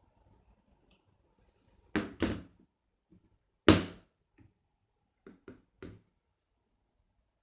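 A series of knocks and thuds: two close together, then one louder thud, then three lighter knocks in quick succession.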